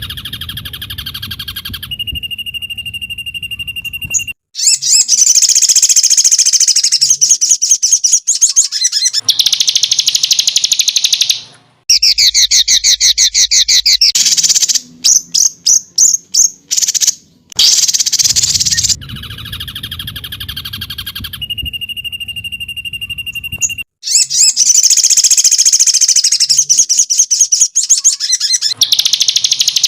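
Songbird-training master recording of rapid-fire song: loud bursts of fast, high-pitched chirps and trills, with a steady high whistle held for about two seconds. The same sequence loops, starting over about halfway through.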